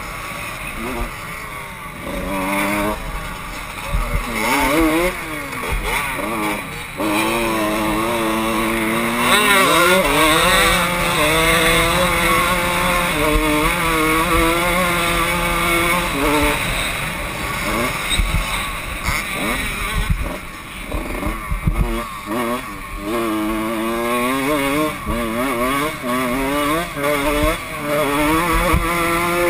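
Kawasaki KX125 two-stroke single-cylinder motocross engine revving up and down as the bike is ridden around the track, heard close from the rider's helmet camera. About a third of the way in it holds steady at high revs for several seconds, then drops. Near the end it runs through a series of rising revs.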